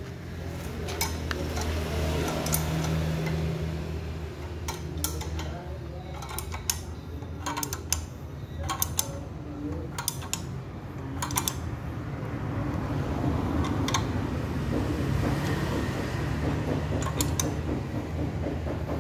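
Steel 14 mm spanner clinking and clicking against the nuts of a diesel engine's fuel injector fittings as they are tightened hard, sharp metal clicks coming at irregular moments, over a low steady hum.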